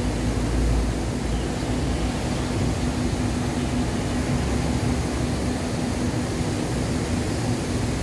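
Steady urban background noise: a constant rushing hum of the surrounding city, with one steady low machine drone running through it.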